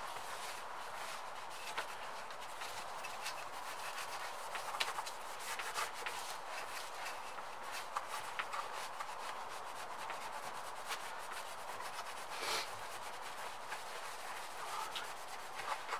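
A cloth rag wiping and rubbing the tank and casing of a small portable air compressor, a steady scrubbing with a few small knocks.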